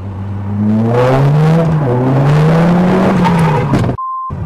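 A car engine revving hard, its pitch rising and falling. About four seconds in it cuts off and a short steady beep sounds.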